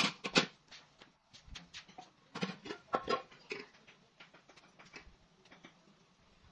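Irregular sharp clicks and taps of vegetables and a knife being handled in plastic baskets during hand food preparation, loudest right at the start and in a cluster about two to three and a half seconds in, sparser after.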